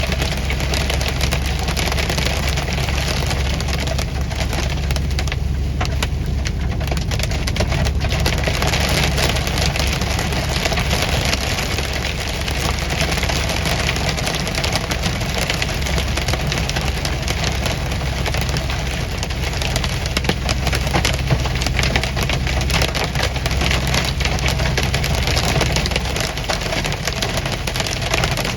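Hail and rain pelting a moving vehicle, a dense, irregular patter of small hard hits, over the steady hum of the engine and road noise.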